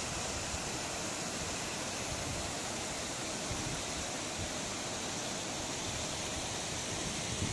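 Steady rushing of YiYuan 1 HP two-impeller paddle wheel aerators churning a shrimp pond into white foam, with a low, uneven rumble underneath.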